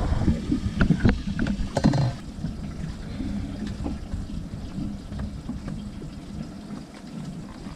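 A few sharp clicks and knocks of handling in the first two seconds, then a steady low rumble of wind on the microphone.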